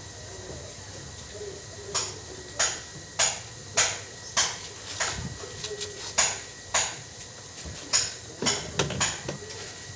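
Hammer tapping on metal, about a dozen sharp ringing strikes at an even pace of roughly one every half second, with a short pause about seven seconds in, as washing machine gearbox parts are knocked into place.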